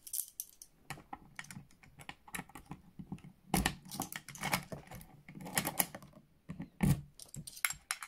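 Keys jangling on a ring, then a key fitted and turned in a Federal garage door bolt lock: a run of sharp metallic clicks and rattles, busiest and loudest from about three and a half seconds in.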